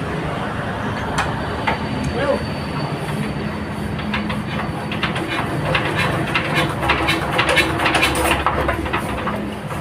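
Overhauled 24 hp engine running steadily, driving a 10 kW single-phase generator: a steady mechanical hum with a clatter of clicks and knocks over it, busiest in the second half. It is said to be short of power.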